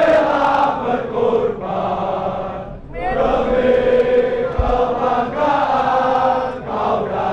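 A large crowd of football supporters chanting a song together in unison, with a brief break about three seconds in before the chant picks up again.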